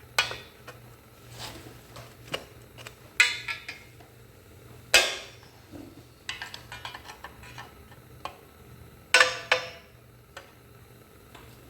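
Hand tools clanking and clinking against metal drum-brake parts being taken apart without special drum-brake tools: four loud ringing clanks, one near the start, around three and five seconds in, and one about nine seconds in, with lighter metal clinks between them.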